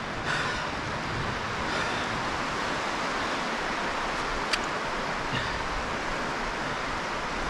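Steady wind noise on the microphone, with a single sharp click about four and a half seconds in.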